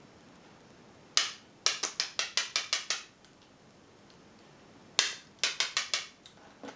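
Sharp metallic knocks of a bump key being struck on its back in a padlock keyway. One knock is followed by a quick run of about seven, about six a second. After a pause comes another knock and a run of about five. The pins are not jumped and the lock stays shut.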